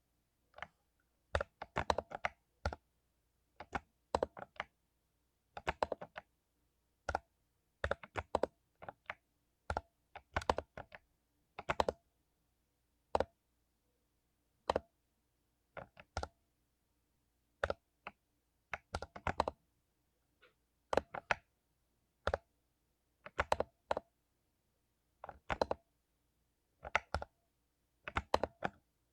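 Mechanical keyboard with lubed Cherry MX Silver linear switches being typed on in short irregular bursts of keystrokes, with brief pauses between bursts.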